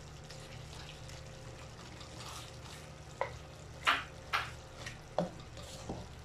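A black plastic spoon stirring pork and sliced long green chilies in a stainless steel pan, scraping and knocking against the pan a few times in the middle of the stir, over a low steady background.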